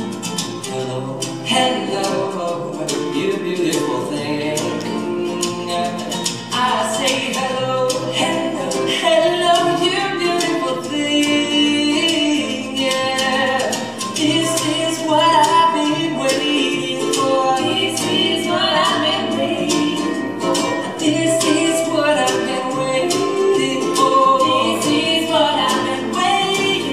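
A small acoustic band playing live: acoustic guitar, ukulele and upright bass, with voices singing together in harmony over them.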